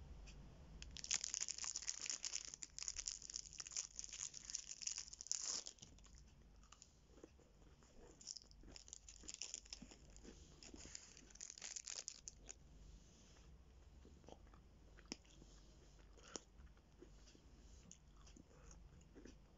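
A chocolate bar's plastic wrapper torn open and crinkled, crackling loudly from about a second in, with more crackling a few seconds later. Then quieter biting and chewing of the bar of milk chocolate with crisped rice and peanuts, with a few faint crunches.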